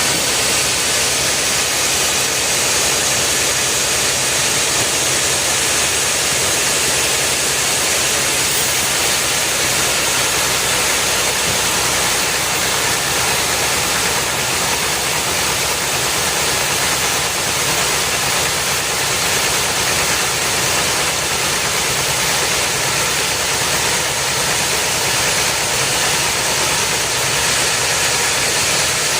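Wood-cutting machinery running steadily, a constant loud mechanical noise with a strong hiss and no change in pitch or level.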